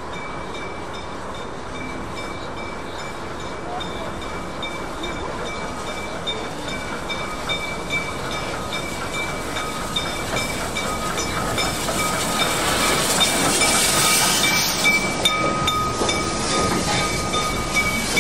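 Danish class F 0-6-0T steam tank locomotive No. 656 running slowly into the station with its coaches. Steam hiss and wheel noise grow louder as it passes closest, about two-thirds of the way through, over a steady thin high-pitched tone.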